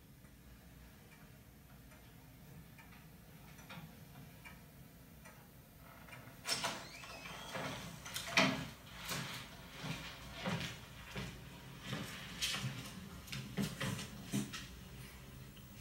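Film soundtrack played through a Klipsch home-theater speaker system: quiet at first, then from about six seconds in a run of irregular sharp knocks and thuds, the loudest a little past eight seconds.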